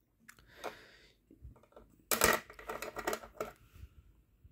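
Small metal gears of an airsoft electric gun's gearbox clicking and clattering against the metal shell as they are worked loose and one is lifted out, with a dense run of clicks about two seconds in.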